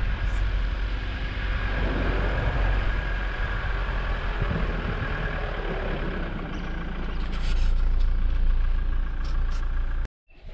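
Vehicle rumbling along a dirt track, engine and tyre noise mixed with wind buffeting the microphone. It cuts off suddenly near the end.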